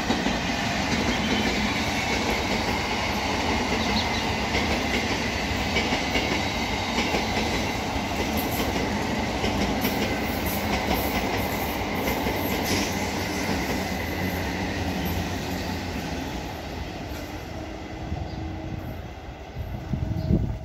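Eastern Railway EMU electric local train running past on the rails, with a steady high whine over the rolling noise of its wheels, fading near the end as it moves away.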